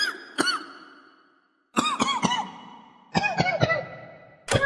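A voice chanting short "boom" syllables in three groups of three, each syllable trailing off in a fading echo.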